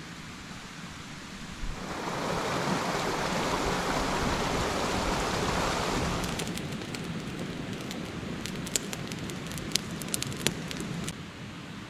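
Steady rain falling in the forest. About two seconds in it swells into a louder, heavier rush for a few seconds, then eases, with close drops landing as sharp ticks until the sound cuts off suddenly near the end.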